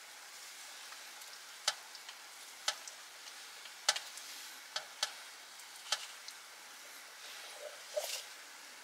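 Fish grilling on a mesh grill: a steady faint sizzle broken by sharp crackles and pops about once a second.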